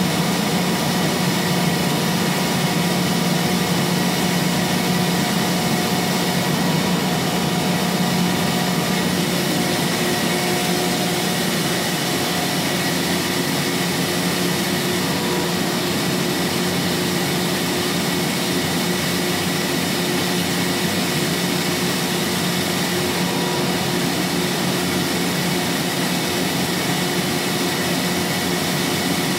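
Kaeser BS 51 40 hp rotary screw air compressor running on load, compressing air: a loud, steady mechanical hum with a constant low tone.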